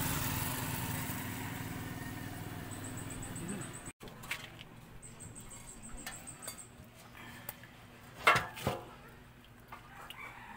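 An engine running steadily for the first few seconds, fading until an abrupt cut. Then quieter background with scattered sharp knocks and clicks, the loudest two close together about eight seconds in.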